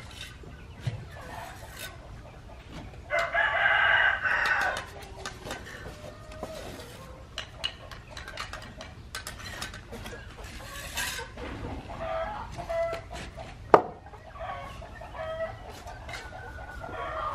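A rooster crowing once, loud, about three seconds in, with softer chicken calls later. Light scattered clicks throughout and one sharp knock near the end.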